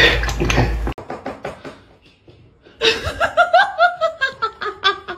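A person laughing in quick high-pitched bursts from about three seconds in. Before that comes a loud clatter with a low hum, which cuts off abruptly after about a second.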